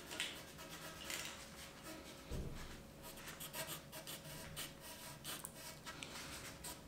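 A knife blade scraping and cutting through black heat-shrink tubing held in gloved hands: faint scratching and rubbing with small ticks, and a dull knock a little over two seconds in.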